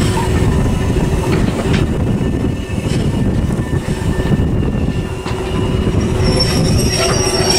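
LNER A4 Pacific steam locomotive 4464 'Bittern' rolling slowly past with its tender: a steady low rumble of wheels on rail under a constant hum, with a few clicks. High-pitched wheel squeal starts about six seconds in.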